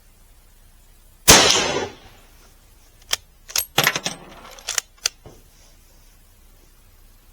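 A single shot from a Mauser K98 bolt-action rifle in 7.92×57mm Mauser, with a short echo dying away after it. About two seconds later, a quick run of metallic clicks and clacks as the bolt is worked to eject the case and chamber the next round.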